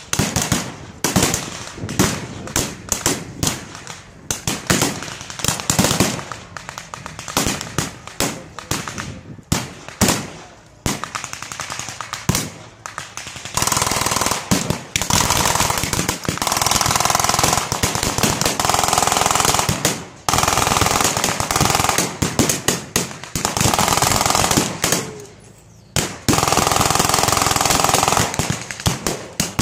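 Battle gunfire with blank rounds: rifle shots crack one after another through the first half. From about halfway on, long bursts of machine-gun fire, each lasting a second or more, come with short pauses between them.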